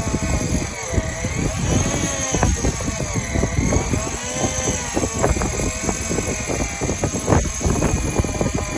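Shimano BeastMaster 9000 electric fishing reel winding in line under heavy load, its motor whining in a pitch that rises and falls in slow waves as the fish pulls against it. Wind buffeting and knocks on the microphone under it.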